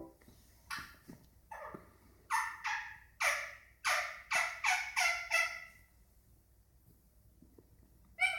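Indian ringneck parakeet chattering: a quick run of about a dozen short calls over some five seconds, then a pause and one more loud call near the end.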